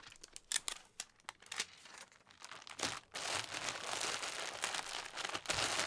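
Bubble-wrap duct insulation and flex duct tape being handled and pressed into place. There are scattered light crackles at first, then from about three seconds in a steady crinkling rustle.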